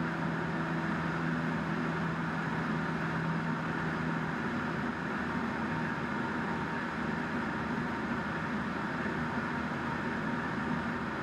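Single-engine light aircraft's engine and propeller droning steadily, heard inside the cockpit. Its tone shifts slightly about four seconds in.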